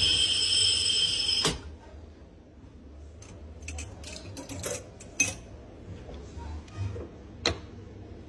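Glass rinser spraying with a hissing whistle for about a second and a half as a glass is pressed down on it, then scattered clinks and taps of glassware and ceramic being handled.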